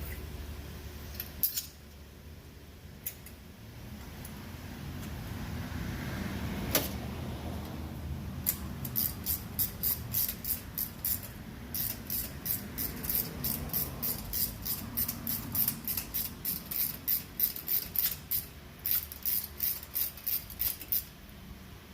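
Ratchet wrench clicking in a steady run of strokes, about three sharp clicks a second, from about nine seconds in, during work on the ignition coil packs. Before that, a few single clicks and one sharper knock about seven seconds in.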